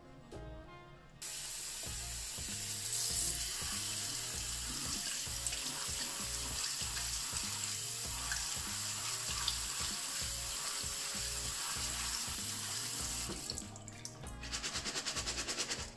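Kitchen tap running onto soaked buckwheat in a stainless steel mesh strainer, starting suddenly about a second in and shutting off near the end. The strainer is then shaken to drain, a quick run of regular light rattles.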